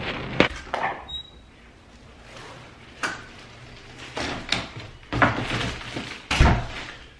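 Handling noises: a couple of sharp knocks as a cardboard cereal box is pulled off a store shelf, then a reusable shopping bag rustling and knocking as it is lifted and set down on a table, with one heavy thump near the end.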